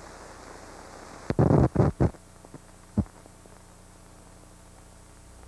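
Hiss and low hum of a 16mm film soundtrack running over blank leader, broken about a second and a half in by a quick cluster of three or four loud pops, then a single click near the three-second mark.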